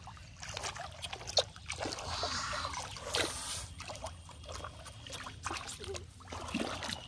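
Shallow muddy water splashing and trickling as feet wade and hands scoop through it, a run of small irregular splashes with one sharper, louder hit about a second and a half in.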